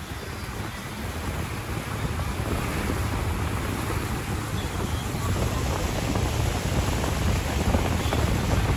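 Wind rushing over the microphone on a moving boat, with a low rumble underneath, growing gradually louder.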